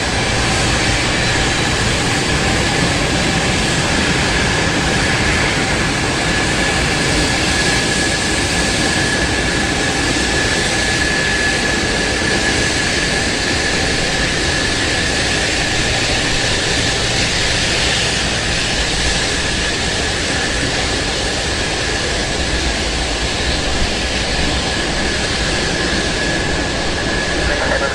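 Six Progress D-18T turbofan engines of the Antonov An-225 Mriya running, a steady loud rush of noise with a thin high whine held throughout.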